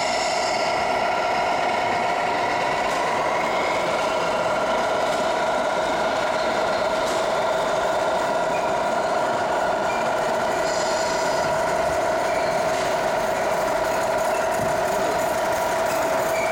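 Radio-controlled model trucks running, giving a steady engine-like hum with a high steady whine over it.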